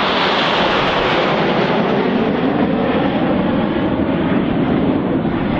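Red Arrows' formation of BAE Hawk T1 jets flying past: a loud, steady jet roar, its sharpest hiss easing after the first second or so as the jets move on.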